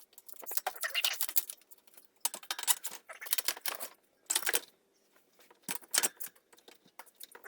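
Irregular bursts of light clicking and rattling from a bicycle and its headset parts being handled and turned over.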